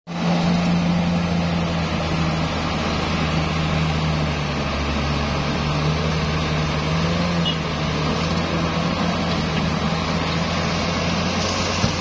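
Komatsu D68ESS crawler bulldozer's diesel engine running steadily under load as the dozer pushes earth with its blade, with a low, even hum.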